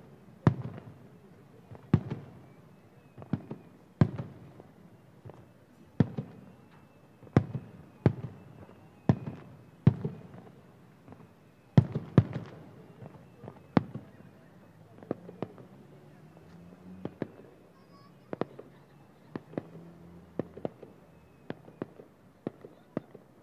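Aerial firework shells bursting about a kilometre away, a sharp bang roughly every second, each trailing off in a short rolling echo; the bangs grow somewhat quieter and more scattered in the second half.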